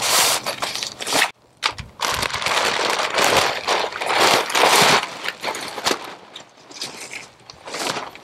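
Pop-up tent pulled from its round carry bag and thrown open: nylon fabric rustling and crackling, loudest in the middle and dying down near the end, with a few sharp snaps as the frame springs out.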